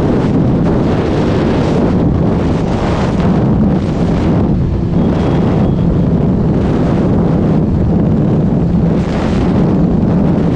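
Heavy wind noise on the microphone at highway speed over the steady drone of a KTM RC200's single-cylinder engine held at full throttle, up against its rev limiter at about 135 km/h.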